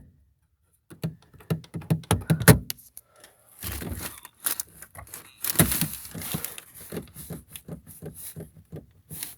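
The inside door handle of a 2007 Toyota Camry is pulled again and again, clicking and thunking without the door opening because the child safety lock is engaged. Rustling and handling noise follow, with scattered clicks.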